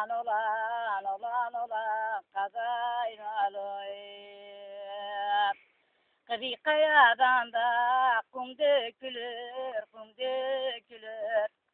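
A woman singing alone without accompaniment, her line wavering and ornamented. She holds one long steady note a little past the middle, breaks off briefly, then carries on singing.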